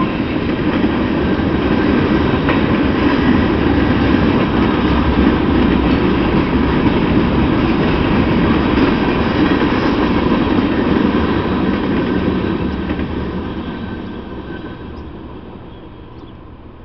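Freight train of tank cars rolling past, a steady rumble of wheels on rails that fades away in the last few seconds as the end of the train goes by.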